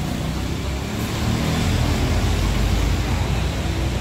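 Tour bus diesel engine running, a steady low drone of vehicle noise with no horn sounding.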